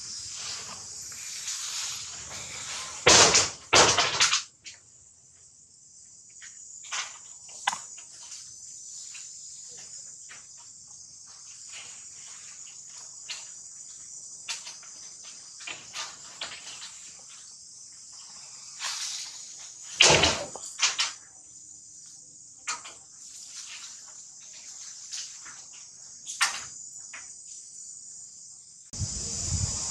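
Steady high-pitched drone of an insect chorus, with a few loud knocks about three to four seconds in and again around twenty seconds, and scattered small clicks in between.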